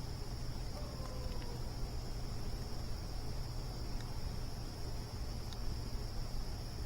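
Crickets chirring in a steady, continuous high trill over a low, even rumble, with a few faint pops from a campfire.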